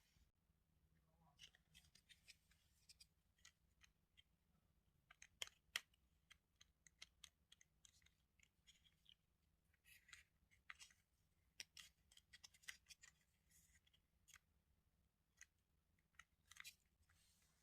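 Small plastic toy pieces and packaging being handled: scattered light clicks and short rustles, with two sharper clicks close together about five and a half seconds in.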